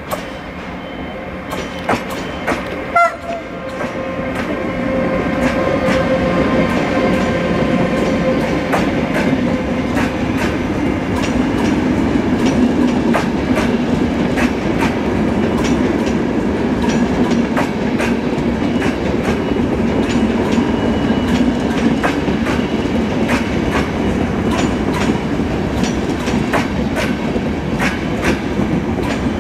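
Electric locomotive hauling a rake of passenger coaches slowly past. The wheels clack steadily over the rail joints over a continuous rolling rumble, which grows louder a few seconds in as the coaches draw alongside.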